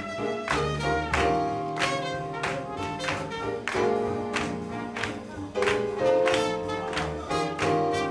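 Swing jazz music with a steady, even beat and held horn notes.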